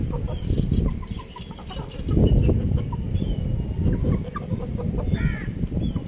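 Chickens clucking softly, with a few short high calls, one of them about five seconds in, over loud low rustling noise.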